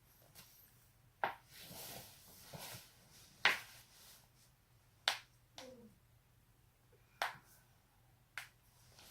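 Joints being cracked: five loud, sharp pops a second or two apart, with a few fainter pops and a soft rustle of movement between them.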